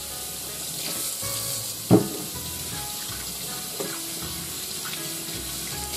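Water running steadily from a kitchen tap into a stainless-steel sink, a continuous hiss.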